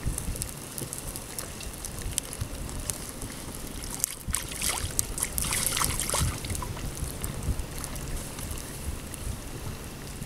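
Wind buffeting the microphone, with a couple of seconds of water splashing from about four seconds in as hands are rinsed in the pond.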